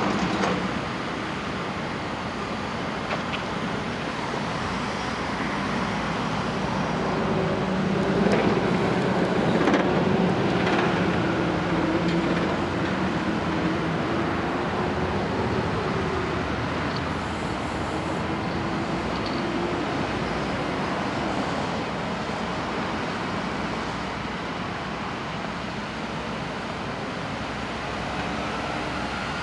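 Heavy diesel machinery working: the John Deere 225D excavator's engine runs under hydraulic load over a steady rumble, its pitch climbing and getting louder about eight seconds in, then easing back about halfway through.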